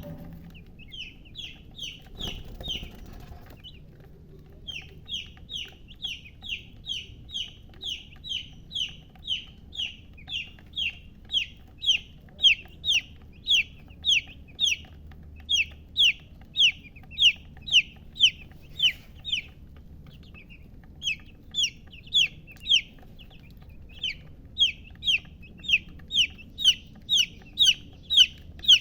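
Baby chick peeping: a long regular run of short, high, falling peeps at about two a second, with a few short pauses. There is a brief rustle about two seconds in.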